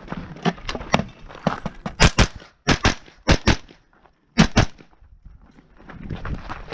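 Pistol-caliber carbine firing rapid shots in a practical shooting course of fire: a few lighter cracks at first, then louder shots mostly in quick pairs, with short gaps between pairs. Near the end, footsteps scuffing on gravel.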